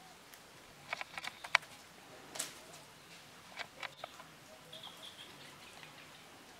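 Dry leaf litter crackling and snapping in sharp clicks: a quick cluster about a second in, then a few single ones at two and a half and three and a half seconds. A short high chirp comes near five seconds.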